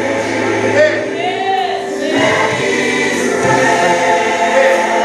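Gospel choir singing, voices gliding and holding notes over a steady sustained accompaniment.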